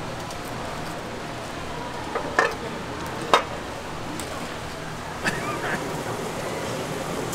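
Large pot of water at a rolling boil, hissing and bubbling as thin wheat noodles are stirred in it with long metal chopsticks. A few sharp clinks come through, the loudest about three seconds in.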